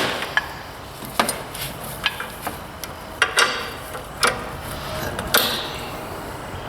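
Irregular sharp metal clicks and clacks of hydraulic hose quick-couplers being handled and pushed onto the Kubota BX24 tractor's couplings.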